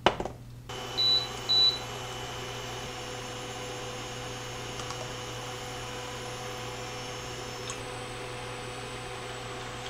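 Induction burner switched on: two short beeps from its control panel about a second in, then its cooling fan and electronics hum steadily at a constant pitch.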